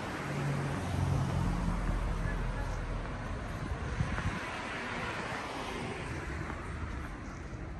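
Road traffic passing on a city street: a van's engine hum and tyre noise go by close in the first couple of seconds, then another vehicle's tyre noise swells and fades around the middle.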